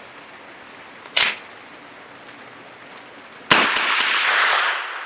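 A sharp clack about a second in, then a single shot from a Thureon Defense 9mm blowback carbine about three and a half seconds in, its report rolling on for about a second before fading.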